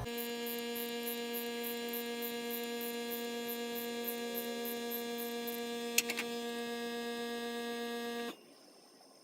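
Steady electrical hum with a faint, regular high-pitched ticking over it, one sharp click about six seconds in, and a sudden cut-off near the end.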